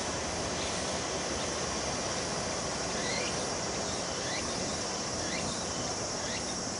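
Steady high-pitched chorus of cicadas over the low rumble of a KiHa 47 diesel railcar moving away. From about three seconds in, a short chirp repeats about once a second.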